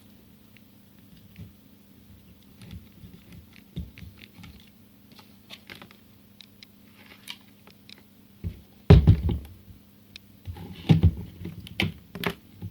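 Irregular knocks and clattering of handling, loudest in two clusters about nine seconds and eleven to twelve seconds in, over a faint steady hum.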